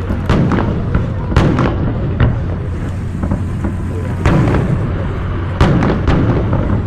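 Aerial fireworks exploding in a string of sharp bangs and crackles, some in quick clusters, the loudest about two-thirds of the way through, over a steady low rumble.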